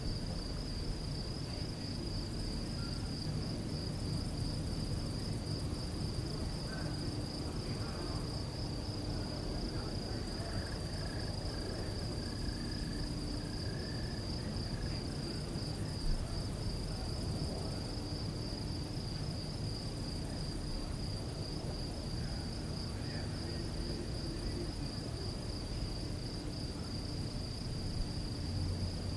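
Crickets chirping: one steady, high, rapidly pulsing trill that never stops, over a low background rumble.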